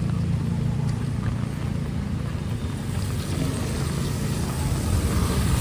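Street traffic on a rain-soaked road: a steady low engine rumble, with a hiss that grows louder about halfway through.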